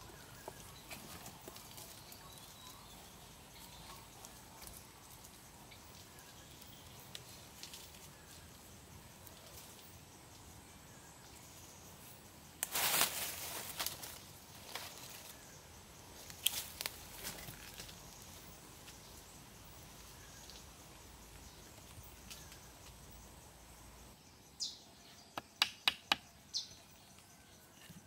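Faint forest background with insects. About halfway through there is a brief scraping rustle. Near the end comes a quick run of sharp knocks: a hatchet tapping upright wooden posts into the soil.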